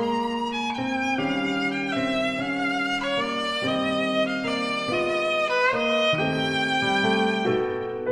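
Background music: a violin playing a melody of held notes that change about every half second.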